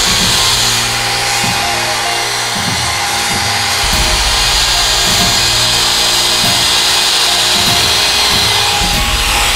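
Handheld wood router running steadily as it rounds over the edge of a wooden board with a quarter-round bit. Background music with a steady beat plays under it.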